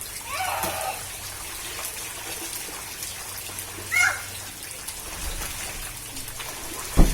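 Steady rain falling, an even hiss, with a child's short high cry about half a second in and another about four seconds in. A single sharp thump near the end is the loudest sound.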